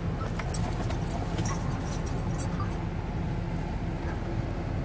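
Steady low rumble of a car's engine and tyres heard from inside the cabin as it rolls through a parking lot, with a few faint clicks in the first three seconds.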